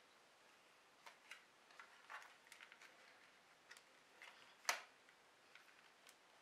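Faint, scattered clicks and taps of a small plastic camcorder and its strap being picked up and handled, with one sharper click a little under five seconds in.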